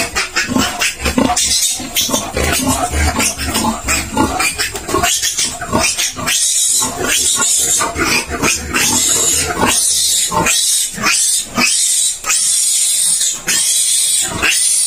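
Young piglet squealing loudly and over and over while it is caught and held by hand, the distress cry of a handled piglet.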